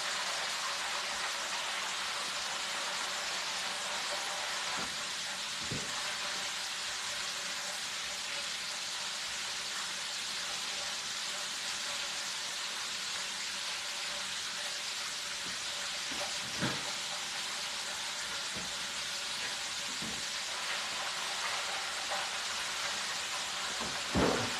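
Hot oil sizzling steadily in an electric deep fryer as chicken fries, with a few faint knocks, the loudest near the end.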